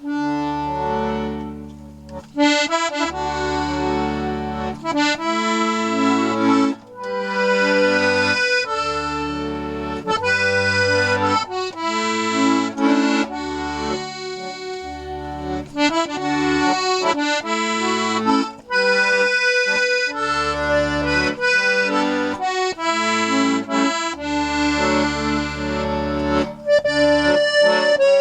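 A freshly restored 72-bass Stefanelli piano accordion playing an Irish folk tune: a quick melody over bass-and-chord accompaniment, its newly cleaned, waxed and tuned reeds sounding in tune.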